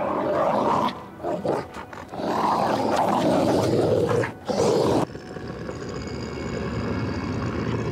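A werewolf creature roaring and snarling in several loud, harsh bursts over about five seconds. It then cuts down suddenly to a quieter, steady background.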